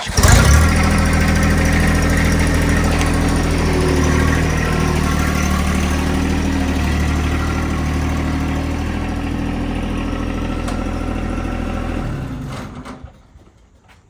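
An engine starts abruptly, runs steadily at idle for about twelve seconds, then dies away near the end.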